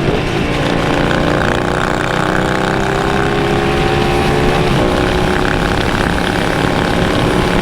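Motorcycle engine pulling hard under way, its pitch climbing steadily as the revs rise, with a gear change just past halfway. A constant rush of wind and road noise runs under it.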